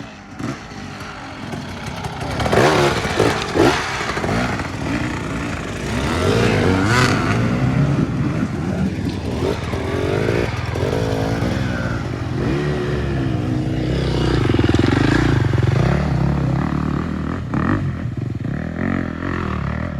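Several motorcycle engines running and revving as the bikes ride in, their pitch rising and falling, building to a steady loud drone.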